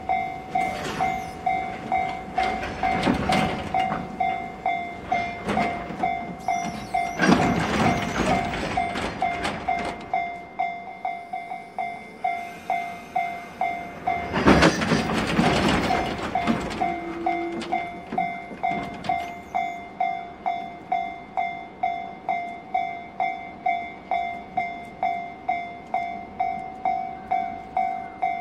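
Container wagons of a freight train rolling past, wheels clattering over the rail joints with a few louder bursts. Under it, a level-crossing warning bell rings steadily about twice a second.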